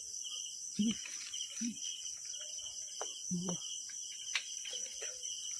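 Night insect chorus of crickets: a steady, high, pulsing trill, with a few short, soft, low sounds about one, one and a half, and three seconds in.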